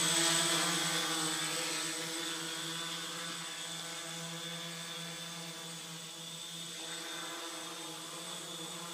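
An XAircraft quadcopter's brushless motors and propellers humming steadily as it hovers in GPS position hold with no pilot input. The hum grows fainter over the first few seconds, then holds level.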